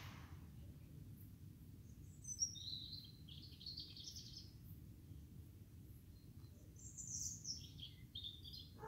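Faint bird chirps in two spells of quick, high calls over a low steady hum, with a brief click at the very start.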